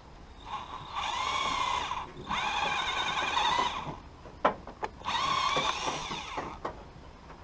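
Cordless power drill whining in three runs of about one to one and a half seconds each, with a couple of sharp clicks between the second and third runs.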